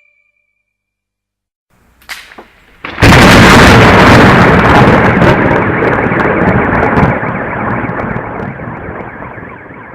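A thunderclap: a few short crackles, then about three seconds in a loud crash that rolls on as rumbling and slowly fades.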